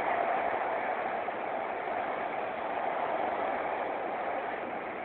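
Shenzhen Metro Line 1 train running between stations, heard from inside the passenger car: a steady noise of wheels on rails and running gear, with no breaks or knocks.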